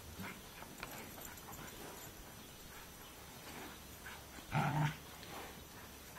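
A dog gives one loud, short bark about four and a half seconds in, with faint scuffs of hooves and paws on loose dirt around it.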